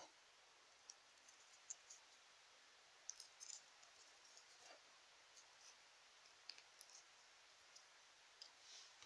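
Near silence with a few faint, scattered clicks of small plastic toy pieces being handled and pressed together.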